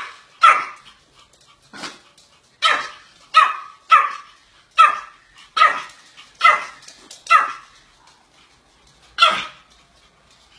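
Pomeranian barking repeatedly: about eleven short, sharp, high barks in a loose rhythm, with a longer gap before one last bark near the end.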